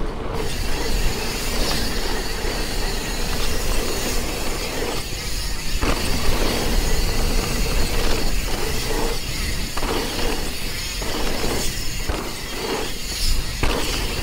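Mountain bike rolling over a rough trail: steady tyre and wind noise, with only a faint rattle of the brake pads left after the rattle fixes.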